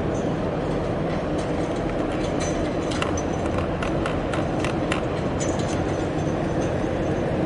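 Steady low rumble of a large container ship passing close by. About halfway through comes a quick run of some eight sharp clicks.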